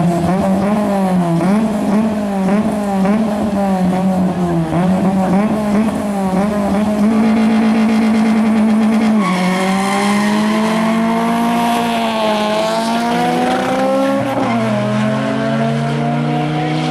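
A car's engine held at high revs, its pitch wavering up and down, then changing note about nine seconds in and climbing steadily as it accelerates. Tyre squeal comes in as it pulls away, and a lower engine note joins near the end.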